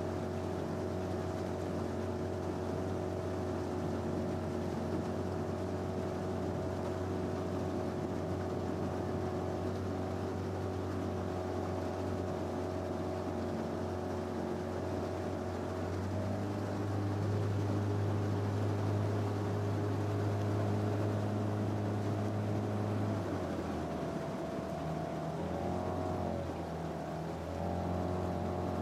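Motorboat engine running steadily alongside. Just past halfway it gets louder, and near the end its engine speed dips and rises a few times.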